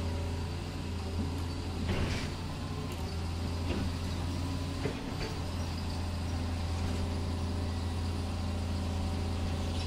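Diesel engine idle sound from an RC construction model's sound unit, steady, with a few light clicks and a short hiss about two seconds in.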